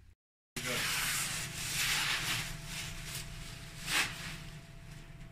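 A brief dropout to dead silence, then rubbing and rustling handling noise as the accordion and things around it are moved, with one sharp click about four seconds in.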